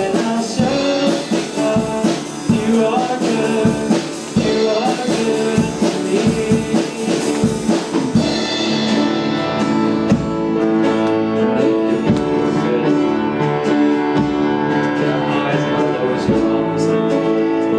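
Church worship band playing live with a drum kit; the drumming is busy in the first half, then sustained chords carry on under lighter drums.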